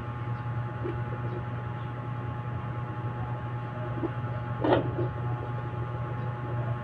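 Fetal Doppler speaker giving a steady electronic hum and hiss, with no regular heartbeat rhythm, while the probe searches. One brief louder noise comes a little before five seconds in.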